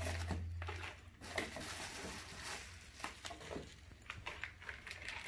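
Pink bubble wrap crinkling and cardboard packaging being handled, with scattered short rustles and a few light knocks.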